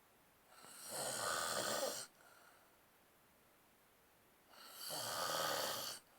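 Snoring: two long snores about four seconds apart, each lasting about a second and a half and cutting off abruptly.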